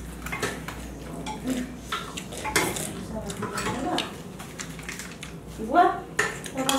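Light clinks and scrapes of a plate and tableware during a meal, as rice is mixed by hand on a plate, in a string of short sharp clicks.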